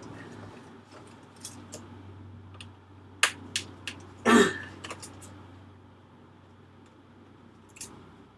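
A few sharp small clicks and taps of tools and parts during iMac disassembly, with one louder short throat-clear-like noise about four seconds in, over a faint steady low hum.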